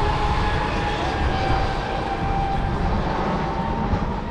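Fast electric RC mono-hull racing boats running, their electric motors giving a steady high whine that drifts slightly in pitch, over a low rumble.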